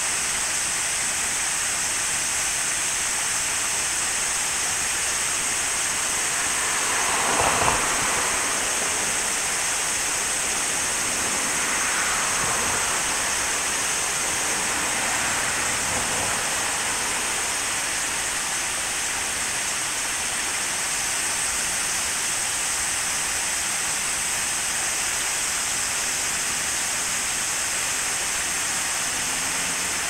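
Steady rush of river water pouring over a small two-step weir and splashing into the pool below, swelling briefly louder about seven seconds in.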